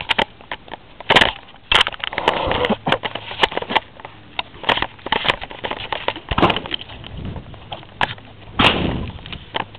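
Camera handling noise: irregular clicks, knocks and rustling as fingers and hands move over the camera and its microphone, with a few louder knocks about a second in, near two seconds and near the end.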